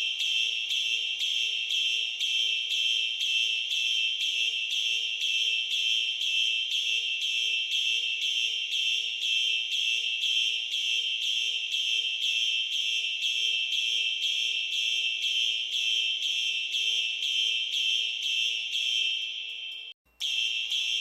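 Fire alarm sounding in march time: a high-pitched tone pulsing rapidly and evenly on and off. It cuts out briefly near the end and starts again.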